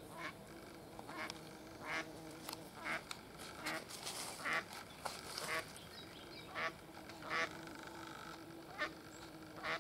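Ducks quacking repeatedly, short calls roughly once a second.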